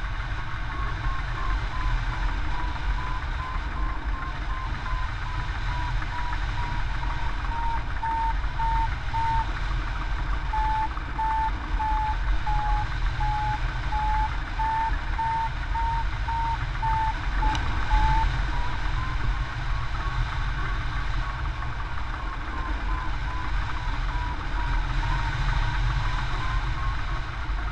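Hang-gliding variometer beeping in a quick, even series of short tones. The pitch sags a little through the middle and climbs again about two-thirds of the way in; rising beeps like these signal the glider climbing in lift. Heavy wind rush from the airflow runs over the microphone.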